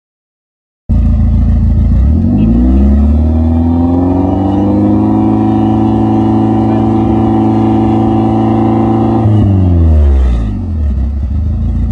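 BMW E30 M3's S14 four-cylinder engine heard through its exhaust: it cuts in about a second in, revs up over a couple of seconds, holds a steady high rpm for about five seconds, then drops back to idle.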